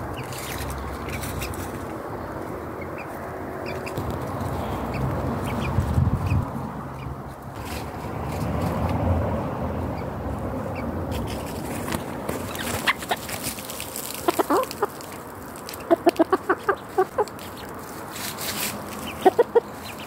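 Rooster clucking in quick runs of short notes, in three bursts over the second half. Before that only low, muffled rustling.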